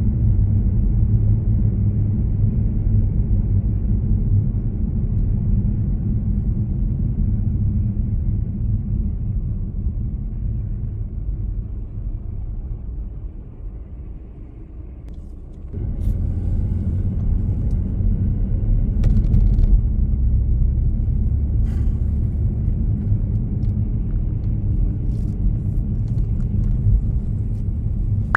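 Low, steady road rumble of a moving vehicle. It eases off and dips partway through, comes back suddenly, and a few faint clicks follow.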